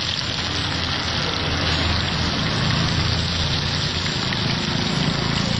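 Masala-marinated fish frying in hot oil on a flat dosa tawa, a steady sizzling hiss. A low, steady rumble runs underneath.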